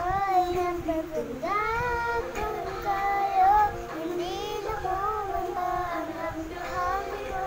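A young girl singing into a handheld microphone, her voice holding and sliding between notes.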